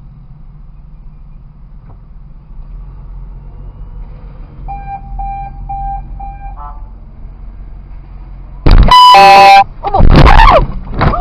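Low steady hum of a stopped car's engine and cabin, broken about halfway through by a short run of quick beeps. Near the end comes a loud car horn blast of about a second, then loud shouting.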